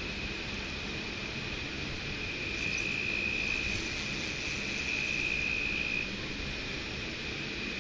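A steady high-pitched insect trill, a little louder in the middle, over a constant low rush of water from a nearby dam.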